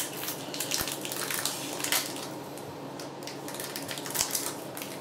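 Foil wrapper of a Pokémon trading card booster pack crinkling and tearing as it is handled and opened, with a few sharp clicks of the plastic.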